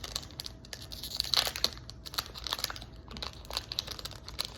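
Foil wrapper of a Yu-Gi-Oh booster pack crinkling as it is handled and opened, in dense irregular crackles.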